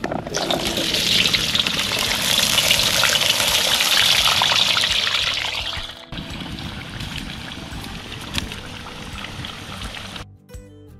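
Fresh-cut potato fries hitting hot oil in a carbon steel frying pan, with a loud, dense sizzle that swells for a few seconds and then fades. After a cut about six seconds in, the fries keep frying with a quieter, steady sizzle, and music comes in at the very end.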